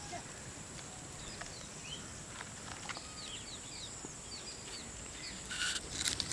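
Outdoor rural ambience: small birds chirping in short repeated calls over a steady high-pitched insect buzz, with some louder rustling and handling noise near the end.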